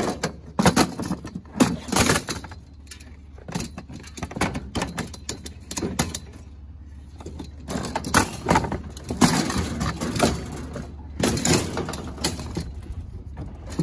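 Scrap metal clanking and rattling in several bursts as ladder parts and other metal pieces are dropped and shifted in an open utility trailer, over a low steady hum.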